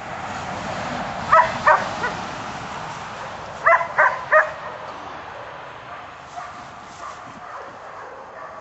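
Puppy yipping up at the handler's hand: two short, high-pitched yips about a second and a half in, then three more in quick succession around four seconds in.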